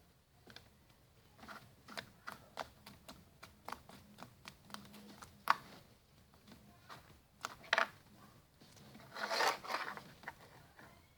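Slime being poked and squeezed by hand: a run of small clicks and pops from air bubbles in the slime, with a denser crackling stretch about nine seconds in.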